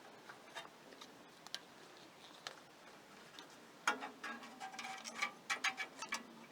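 Hand-work on a small engine: a few scattered light clicks, then a quick flurry of clicks and metallic clinks about four seconds in, as the loosened ignition coil and its wires are worked free and fed through.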